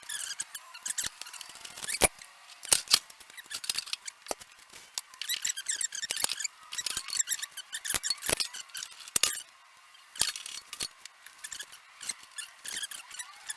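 Hands working on the metal parts of a jointer-planer's dust hood assembly: irregular sharp clicks, taps and scraping as the pieces are handled and fitted.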